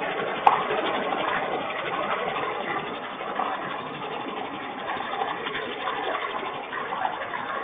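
Steady rain falling, an even hiss of drops, with one sharp click about half a second in.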